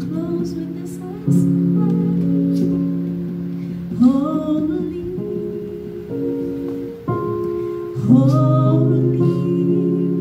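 Worship music: singing over sustained instrumental chords that change every couple of seconds, with the voice sliding into new phrases about four and eight seconds in.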